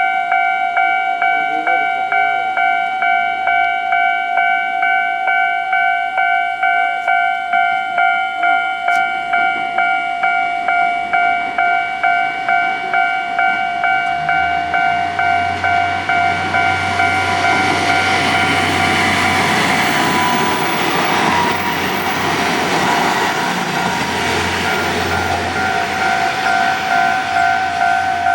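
Japanese level-crossing warning bell ringing in a steady pulse about twice a second. From about fifteen seconds in, a KiHa 48 diesel railcar passes over the crossing, its engine rumble and wheel noise swelling and drowning the bell for several seconds before the bell is heard again near the end.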